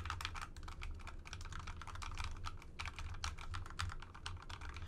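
Typing on a TORN split mechanical keyboard with soft linear Akko Rose Red switches: a rapid, uneven run of keystroke clacks.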